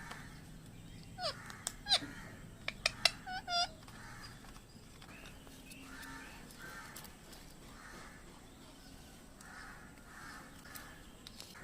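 Parrot squawking: several short, sharp, pitch-bending screeches in the first few seconds, then fainter calls repeated about once a second.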